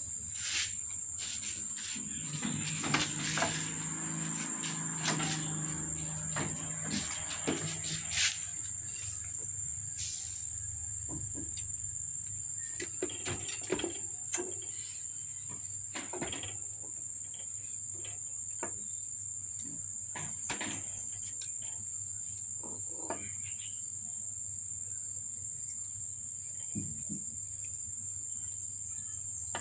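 Steady high-pitched insect trill in the background, unbroken throughout, with scattered light clicks and knocks and a low hum for a few seconds near the start.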